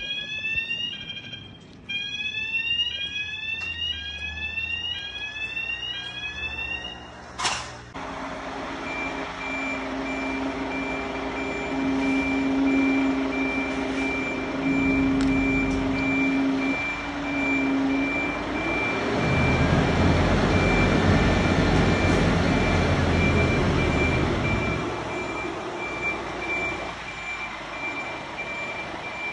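Fire station bay-door warning tones: a rising beep repeating about every half second for the first seven seconds, ending in a sharp knock. Then a Scania fire pumper's diesel engine runs while its reversing alarm beeps steadily, the engine getting louder for several seconds in the middle.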